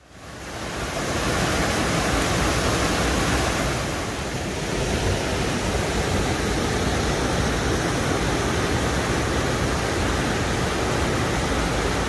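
Mountain stream rushing over granite slabs and boulders: a loud, steady rush of water. It fades in over the first second or so and dips briefly about four seconds in.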